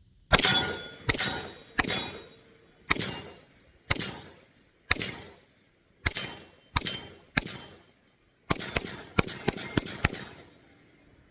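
Glock 19 9mm pistol firing: about nine shots at roughly one a second, then a quick string of about six near the end, each with a ringing tail.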